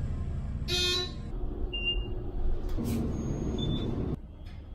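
Elevator car in motion, a steady low rumble, with a short buzzing horn-like tone about a second in and a few brief faint high beeps. The sound changes abruptly near the end.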